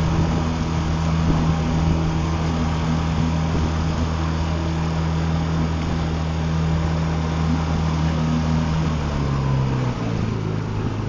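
An engine running steadily at an even speed, its pitch dropping lower about nine seconds in as it slows.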